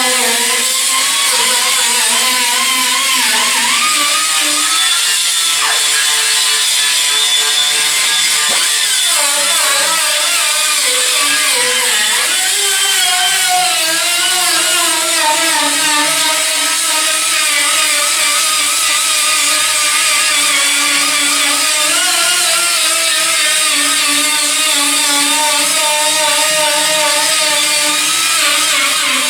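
A power tool running steadily with a loud hiss, its whine wavering up and down in pitch as the load on it changes.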